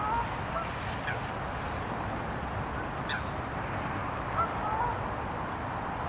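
Distant birds calling: a few short calls that bend slightly in pitch, a pair near the start and another pair a little after halfway, over a steady outdoor hiss. Two sharp clicks fall in between.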